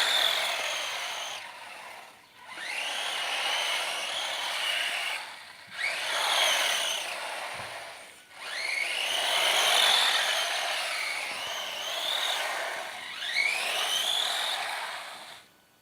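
1/10-scale Redcat Racing Baja buggy RC car driving under full throttle, its brushed 540 electric motor whining. It goes in about five bursts with short let-offs between, the whine rising in pitch as the car speeds up each time.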